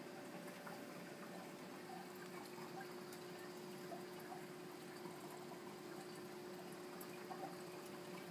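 Steady trickle and splash of circulating water in a Biocube 29 nano reef aquarium, under a steady hum from the tank's equipment.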